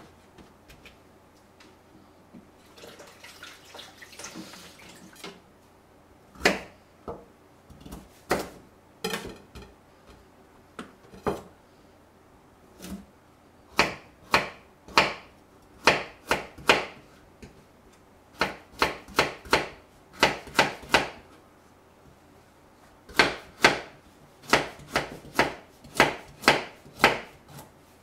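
Kitchen knife cutting burdock root on a small wooden cutting board: sharp knocks of the blade on the board, sparse at first, then in quick runs of three to five. A short scraping sound a few seconds in.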